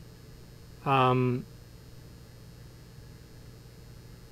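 A man's short drawn-out vocal filler sound, like an "uhh", about a second in, over a low steady background hum.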